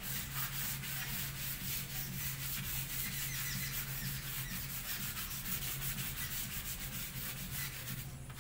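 A board duster rubbed back and forth across a chalk blackboard in quick, even strokes, wiping off chalk writing.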